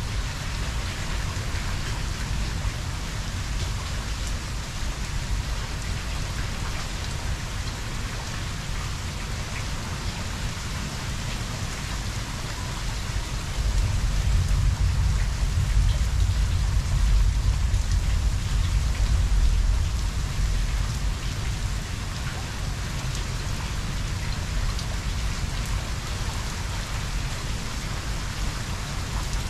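Heavy rain falling steadily, with a low rumble of thunder that swells about halfway through and dies down again after several seconds.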